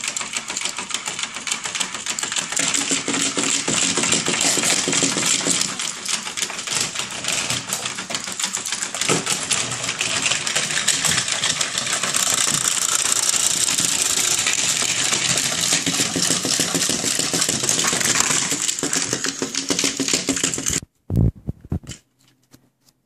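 Chubby Puppies toy dogs' switched-on waddling mechanisms running with a rapid, steady clicking rattle that cuts off about 21 seconds in.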